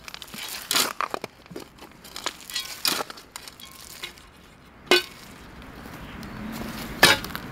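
A spade digging into stony, gravelly soil: irregular crunches and clinks of stones, with a few sharp strikes of the blade.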